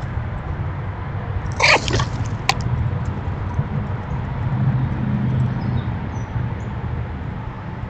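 A steady low outdoor rumble, broken about one and a half seconds in by a short, loud animal call, with a sharp click just after it and faint high chirps near six seconds in.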